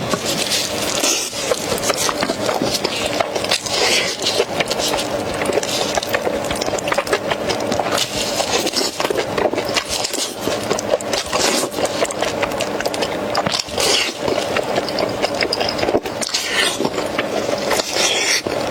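Close-up eating sounds: chewing and gnawing on braised lamb chops, a dense run of clicks and smacks with a few louder bursts scattered through.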